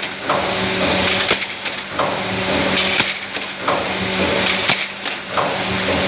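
Tablet strip-packing machine running through its cycle, repeating about every second and a half to two seconds, each stroke bringing clicks and a hiss over a steady hum.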